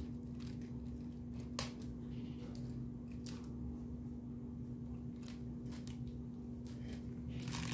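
Light, irregular clicks and rustles of hands handling a bamboo-and-paper rubber-band ornithopter toy, its sticks, rubber bands and wing frame, with one sharper click about one and a half seconds in. A steady low hum runs underneath.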